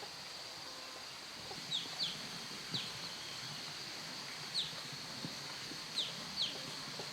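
Chickens on a farm: a scattered series of short, high, falling peeps, about six of them, over a steady high background hum.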